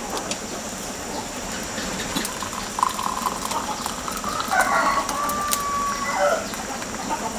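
Tea being poured from a kettle spout into a ceramic cup, starting about three seconds in and stopping near the end. Under it, the small snaps and pops of a wood fire crackling.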